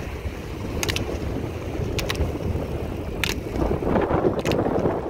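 Roller-ski pole tips striking the asphalt, sharp clicks in close pairs about every second as the skiers double-pole. Under them runs a steady rumble of wind on the microphone and road noise, which swells louder over the last second or so.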